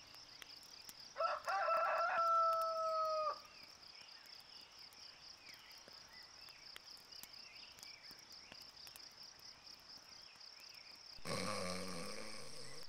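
A rooster crows once, a rough start and then a long held note that breaks off, over a steady high chirring of crickets. Near the end another loud call begins.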